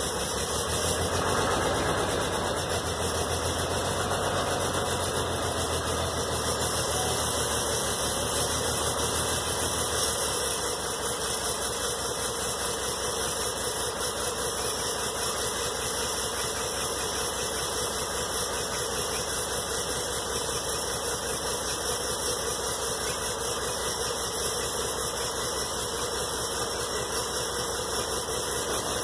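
Old wheel loader's diesel engine running cold just after a cold start, without a block heater or ether. It is a little louder for the first ten seconds or so, then settles to a steadier, quieter run.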